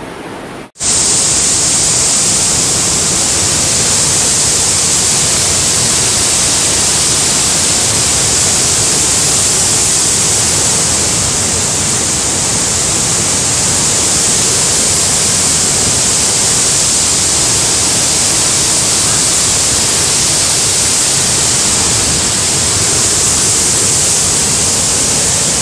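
Loud, steady hissing rush of water, even throughout. It starts suddenly about a second in and cuts off abruptly near the end.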